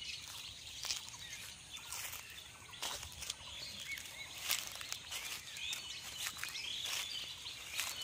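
Small birds chirping in the background, short high calls scattered throughout, with a few sharp clicks at irregular intervals.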